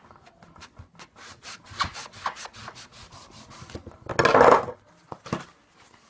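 A knife sawing through a bowling pin's red outer layer and the cardboard tube inside it, in quick short scraping strokes. About four seconds in comes one louder, longer scraping rub.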